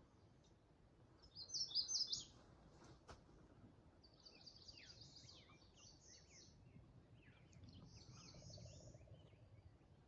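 Songbirds singing, faint and high: a brighter song phrase about a second and a half in, then a string of high chirps and trills, with one sharp click near the three-second mark.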